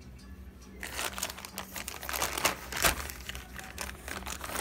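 Clear plastic rice bag crinkling and rustling as a spoon digs rice out of it, starting about a second in, with one louder crinkle near the three-second mark.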